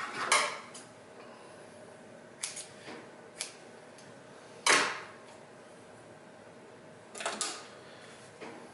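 Scattered handling clicks and knocks as the stitched leather and thread are pulled away from an industrial sewing machine that is not running; the loudest knock comes about halfway, over a faint steady hum.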